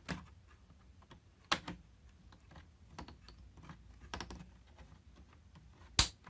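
Irregular plastic clicks and taps as a laptop's internal battery and opened case are handled and the battery is worked loose, with a sharp louder click about a second and a half in and the loudest one near the end.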